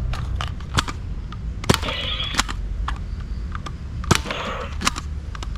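A run of sharp clicks and knocks, the loudest about a second and a half in and again about four seconds in, over a steady low rumble.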